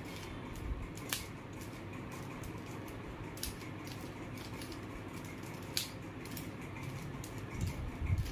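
Plastic layers of a mirror cube clicking as they are turned by hand: a stream of small clicks with a few sharper snaps.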